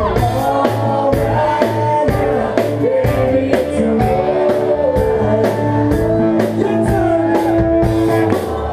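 Live rock band playing a song, with a lead singer singing over guitars and drums keeping a steady beat.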